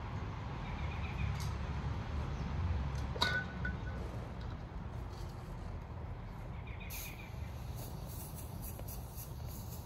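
Backyard ambience: a steady low rumble with a few faint bird chirps, broken about three seconds in by one sharp clink with a short ring.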